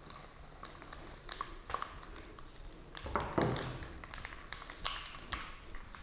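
Mustard and cumin seeds spluttering in hot oil and butter in a kadhai, the tadka stage: many scattered small sharp pops. There is one louder knock about three seconds in.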